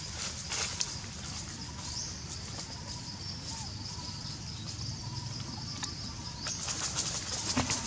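Macaques moving over dry fallen leaves, with scattered short rustles and crackles. Behind them is a steady high insect-like buzzing that swells up about two seconds in and again near the end.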